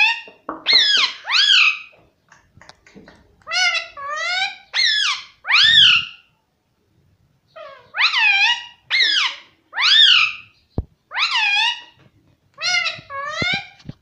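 Rose-ringed (Indian ringneck) parakeet saying 'mummy' over and over in a high, shrill talking voice. The calls come in quick runs of three or four, each with a dipping then rising pitch.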